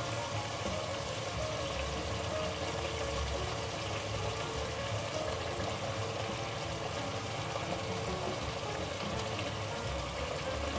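Tomato puree and oil simmering in a pot: a steady sizzle and bubbling.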